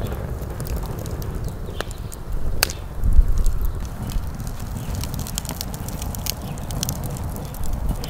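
Wood fire burning in a folding stainless steel fire pit: scattered sharp crackles and pops from the burning firewood over a steady low rumble, with one loud pop a little past halfway through the first half.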